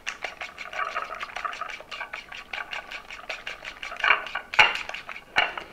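Coil whisk beating eggs until frothy in a white ceramic dish: a fast, even run of wire taps against the dish, with a few louder knocks near the end.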